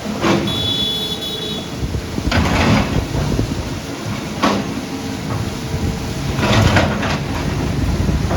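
Tracked earthmoving machine working: a continuous low engine rumble with repeated grinding, scraping surges and a brief high metallic squeal about a second in.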